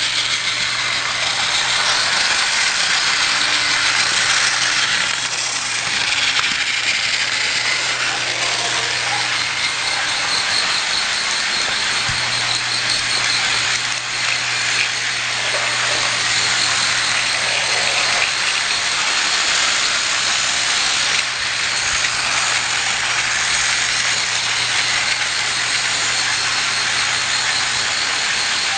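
Battery-powered Thomas Trackmaster toy train running steadily along its track: a continuous even whirring noise with a low steady hum underneath.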